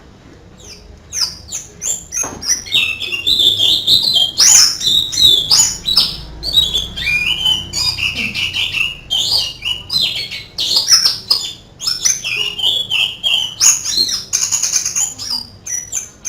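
White-eye (pleci) singing a long, rapid, varied canary-like song of chirps, trills and warbles, starting about a second in.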